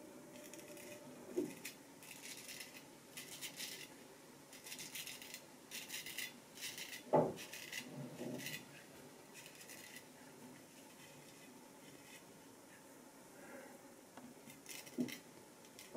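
Vintage Nashville Barber Supply Kaeser's No. 402 straight razor scraping through lathered stubble in short strokes, a series of faint rasps that pause for a few seconds and resume near the end. A single knock about seven seconds in.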